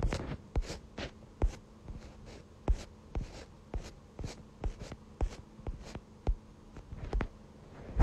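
Irregular light clicks and taps, about two a second, some with a short scratchy rustle after them.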